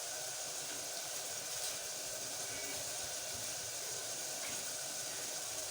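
Food frying in hot oil in a pan: a steady, even sizzle.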